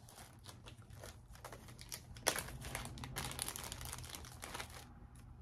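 Crinkling and rustling of a clear plastic bag being handled, with scattered small clicks. It is loudest a little past the middle and dies away near the end.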